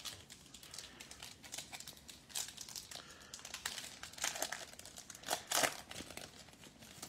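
Foil wrapper of a Panini Playoff football card pack crinkling as it is torn open and peeled back, in irregular crackles, loudest about five seconds in.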